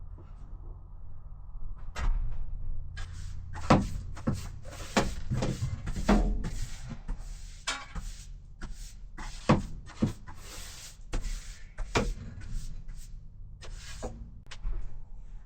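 Tools and pieces of wood being picked up and set down during a workshop clean-up: a run of irregular knocks and clatters with some scraping and rustling in between.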